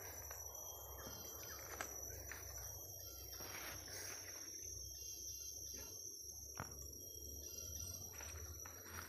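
Steady high-pitched insect chorus of forest crickets or cicadas, with a couple of faint snaps of footsteps in leaf litter.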